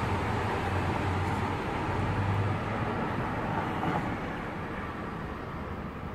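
Steady rumbling background noise, with a low hum in the first couple of seconds, slowly fading over the last two seconds.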